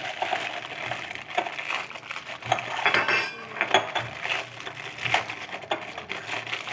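A metal spoon clinking and scraping against a bowl in a string of light, irregular knocks, as thick batter is scooped out.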